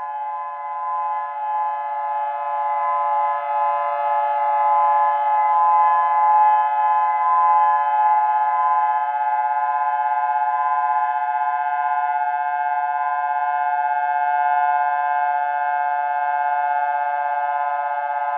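Emergency Alert System attention signal: a loud, steady, harsh electronic alarm tone made of several held pitches, with no rise or fall in pitch.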